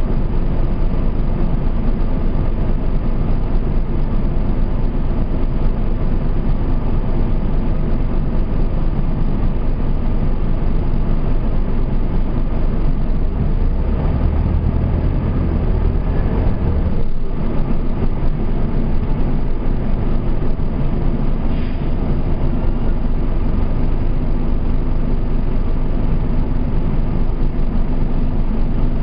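Diesel engine of a Nova Bus RTS transit bus heard from inside the cabin, running steadily as the bus idles and creeps forward. A deeper rumble builds about halfway through and ends in a short knock.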